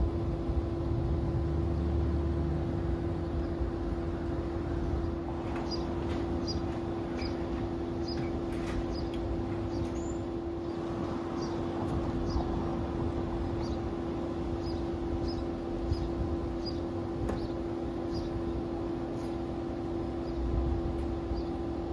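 Steady mechanical hum, with clicks and rattles partway through as a sectional garage door is pushed open by hand, and runs of short high chirps repeating.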